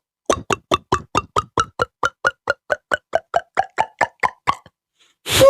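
A run of about twenty short hollow pops, about five a second, their pitch wobbling up and down, as an emoji sound effect in a beatbox challenge. A louder sound starts right at the end.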